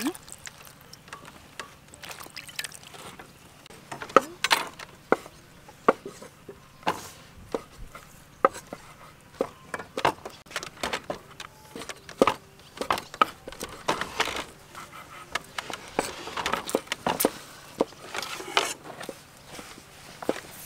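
Two kitchen knives slicing soaked shiitake mushrooms on a round wooden chopping board: irregular knocks and taps of the blades on the wood, sparse at first and louder and more frequent from about four seconds in.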